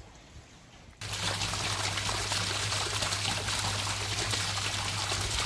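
Rainwater pouring steadily from a downpipe outlet and splashing into a puddle on the ground. It starts suddenly about a second in.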